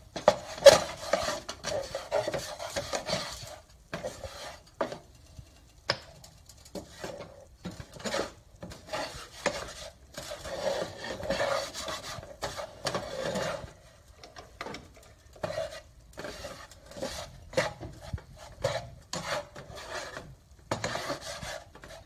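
Metal slotted spatula scraping and stirring a flour-and-oil roux around a nonstick skillet as it browns, in repeated irregular strokes with a couple of short pauses.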